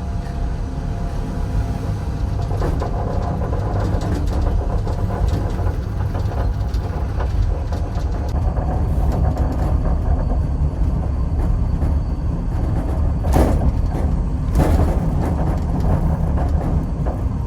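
Steady low rumble of a moving vehicle, with two brief knocks about two thirds of the way through.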